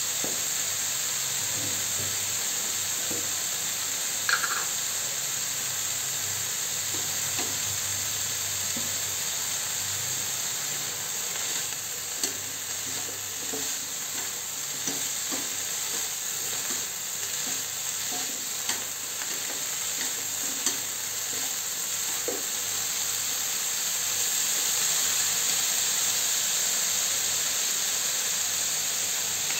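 Beef and Chinese celery stir-frying with garlic in a nonstick pan: a steady sizzle, with scattered clicks and scrapes as a spoon turns the food.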